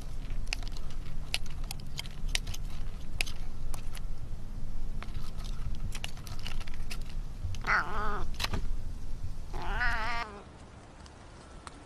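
A cat meowing twice: two drawn-out, wavering calls about eight and ten seconds in. Before them come several seconds of scattered light clicks over a low hum.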